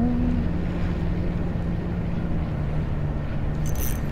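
Steady low drone of a boat motor running out on the bay, over a haze of wind on the microphone. A short high click comes near the end.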